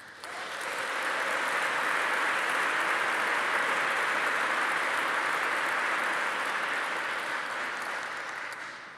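Audience applauding. The applause swells up over the first second, holds steady, then dies away near the end.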